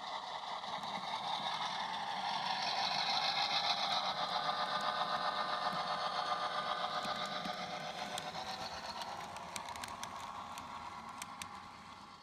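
HO scale model GP8 diesel locomotive with a sound decoder, pulling covered hopper cars past: a steady diesel engine sound with small-motor and wheel noise that swells as the train passes and fades as it moves away. A scatter of sharp clicks comes from the rolling cars near the end.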